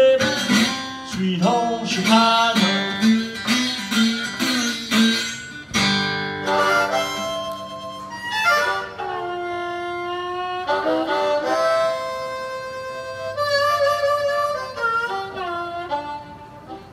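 Blues harmonica played over a strummed archtop guitar. The guitar strumming stops about six seconds in, leaving long held and bent harmonica notes that close out the song near the end.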